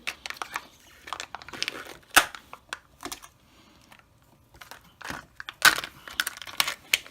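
A Kinder Joy egg being opened by hand: plastic and foil wrapping crinkling and tearing, broken by sharp plastic clicks and cracks, the loudest about two seconds in and a cluster near six seconds.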